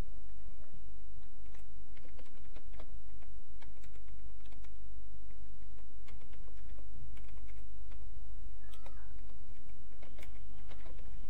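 Typing on a computer keyboard: irregular keystrokes clicking, over a steady low hum.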